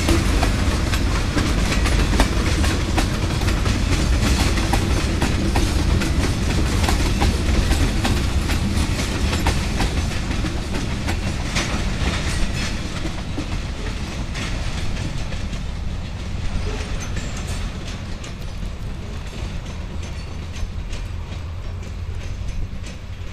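Freight train of tank cars rolling past, the wheels clicking over rail joints above a steady rumble. The sound fades gradually through the second half as the end of the train passes and draws away.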